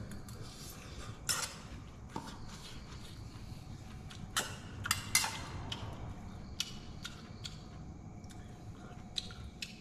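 A spoon clinking and scraping against a metal camping pan while someone eats from it: several short, sharp clinks at irregular intervals over a faint low background hum.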